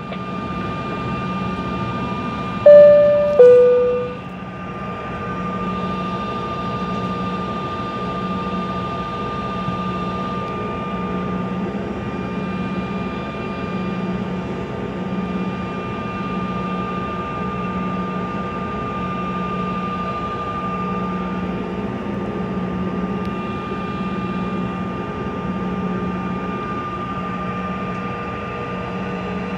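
Steady drone of a waiting airliner's engines and air system heard inside the cabin. About three seconds in, a loud two-note cabin chime sounds, high note then low.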